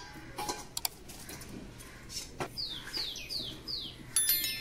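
A small bird calls four times in quick succession, each note a short whistle sliding downward. Under it come faint clicks and tearing as skin and feathers are pulled off a slaughtered chicken by hand. About four seconds in, a brief bright ringing chime is the loudest sound.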